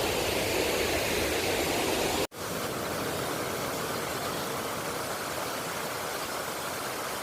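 Steady rushing of a waterfall, an even wash of noise. It breaks off abruptly about two seconds in and resumes a little quieter.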